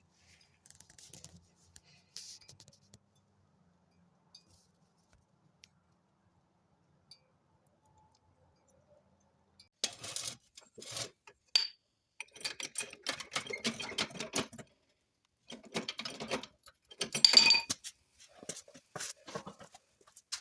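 Irregular metallic clinking and clattering in clusters, starting about halfway through, with the loudest clanks near the middle and toward the end.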